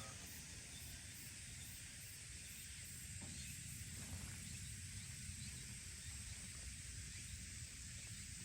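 Faint, steady outdoor background hiss with a low rumble and a few soft clicks. The last note of the outdoor loudspeaker chime dies away right at the start.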